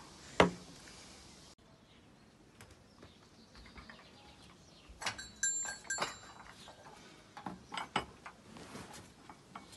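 A sharp click near the start, then small ceramic clinks and knocks as a green espresso cup and saucer are handled and set down on a wooden table, with a brief high ringing sound about five seconds in.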